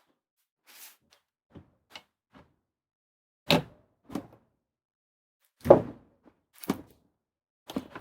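Scattered knocks and clicks of a windshield wiper arm being handled and set back onto its spindle, with two louder knocks about three and a half and five and a half seconds in.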